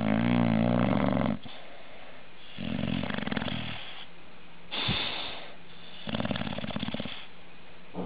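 English bulldog snoring in its sleep: four snores about two seconds apart. The first is the loudest and longest, with a wavering pitch, and the fourth is a short one.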